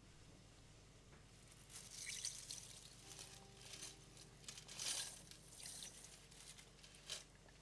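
Faint kitchen sounds of liquid being handled: a series of short pouring and splashing noises starting about two seconds in.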